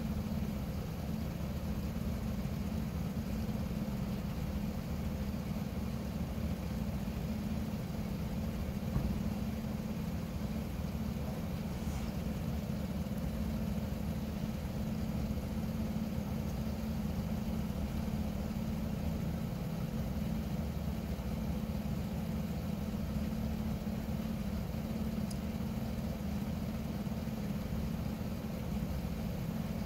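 A vehicle engine idling: a steady, even low hum that does not change.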